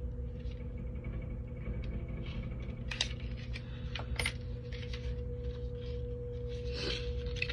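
A few sharp clicks and light rustles of a small cosmetic box, a liquid eyeliner package, being handled, the clearest about three and four seconds in. Under them runs a steady low hum with a faint constant tone.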